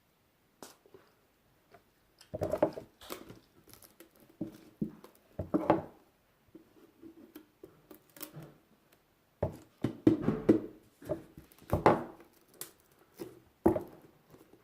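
Irregular clacks, scrapes and squishy handling noises of slime being mixed, with louder bursts a few times.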